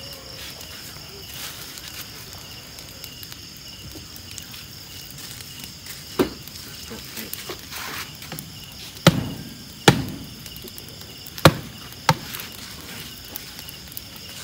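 A knife chopping into a bamboo cooking tube to split it open: several sharp knocks in the second half, the loudest five spaced about a second apart. Crickets chirp steadily behind.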